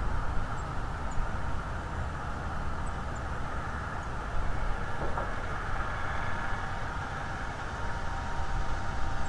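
Steady outdoor background noise picked up by a nest-camera microphone: a low rumble under an even hiss, with a few faint, short high chirps in the first few seconds.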